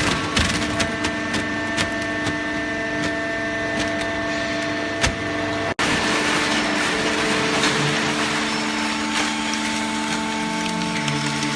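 Automatic horizontal hydraulic cardboard baler running: a steady machine hum of several tones over a rushing noise, with scattered knocks and clicks. The sound cuts out for an instant a little past the middle.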